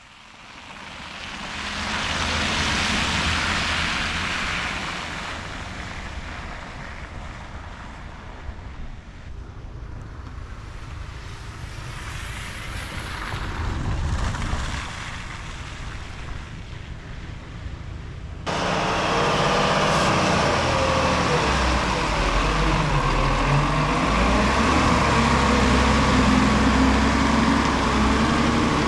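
Vehicles passing on a road: traffic noise swells twice, the first time about two to four seconds in. Partway through it cuts abruptly to a louder, steady engine running close by.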